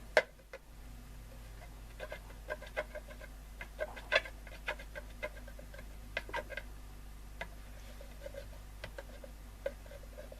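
Irregular small scrapes and clicks of a wooden lolly stick picking at old stickers on a radio's tuning dial, a few to the second, with a sharper click right at the start.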